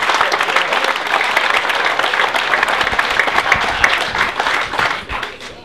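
A crowd applauding with many hands clapping, dying away near the end.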